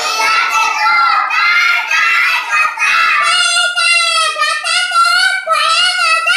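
A young boy reciting a Hindi school-book poem aloud in a loud, high, sing-song chant, with hardly a pause.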